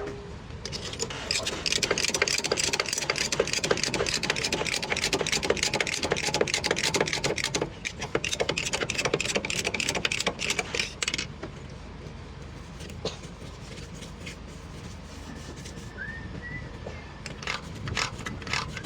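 Rapid metallic clatter of a wrench working a bolt loose, running for about ten seconds and then stopping; after it come scattered lighter clicks and knocks of tools.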